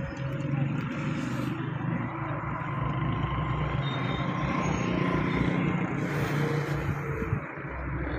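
A motor vehicle engine running steadily, a low hum with a fast even pulse, easing off slightly near the end.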